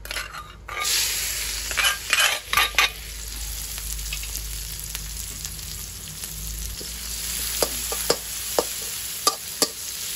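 Chopped red chilies dropped into hot oil in an aluminium wok, sizzling hard at once about a second in, then frying with a steady sizzle. Near the end a metal spatula clicks against the wok several times as the chilies are stirred.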